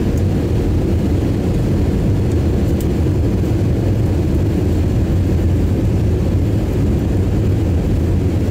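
Steady low rumble of an airliner's jet engines and rushing air, heard inside the passenger cabin during the descent to land.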